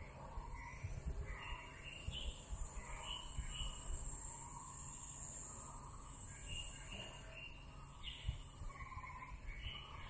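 Birds chirping and calling in short, scattered phrases over a steady high insect buzz, with a low rumble underneath.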